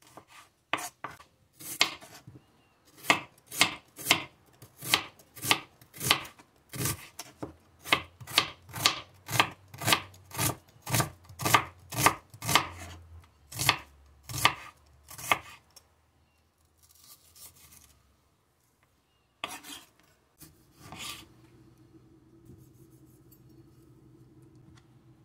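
Santoku-style knife slicing garlic cloves and then a shallot on a bamboo cutting board, the blade knocking the board about twice a second. The slicing stops about two-thirds of the way through. After a pause come two or three more cuts.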